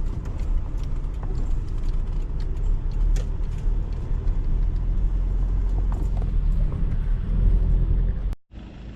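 Steady low rumble of a car driving on the road, with a few faint clicks; it cuts off suddenly near the end, leaving quieter background noise.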